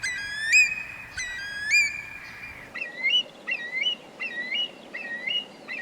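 Curlew calling: a repetitive, alarm-like series of rising whistled notes, about a second apart at first, then quicker, two or three a second, from about halfway through.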